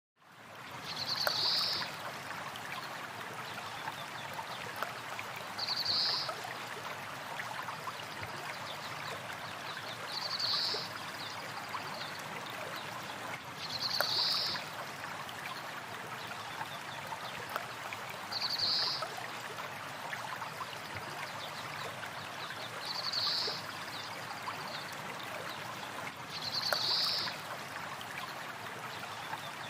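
Stream water running steadily, with a bird's short high call repeating seven times, about every four and a half seconds.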